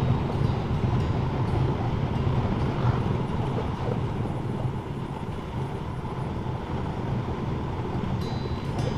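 Motorcycle riding at road speed: steady engine drone and wind rush on the microphone, easing slightly as the bike slows.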